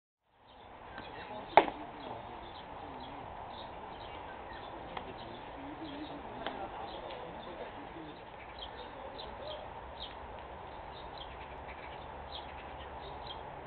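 Outdoor ball-field ambience: faint bird chirps over a steady background, with one loud sharp smack about a second and a half in.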